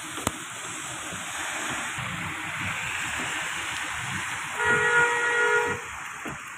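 Steady hiss of tyres on a wet road in rain, with a car horn sounding one steady two-tone blast for about a second near the end. A single sharp click just after the start.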